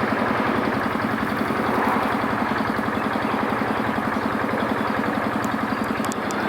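An engine running steadily with a fast, even throb, and a few faint clicks near the end.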